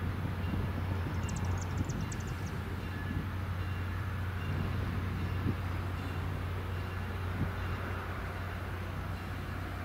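EMD FL9 diesel locomotive running with a steady low drone as it pulls its train slowly forward. A quick run of short high chirps sounds about a second in.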